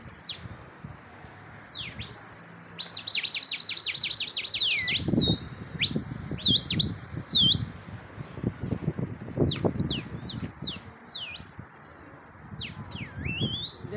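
A person whistling loudly to a flock of flying pigeons: a string of sharp whistles that rise and fall, with a fast warbling trill about three seconds in. Low fluttering noise sounds between the whistles from about five seconds in.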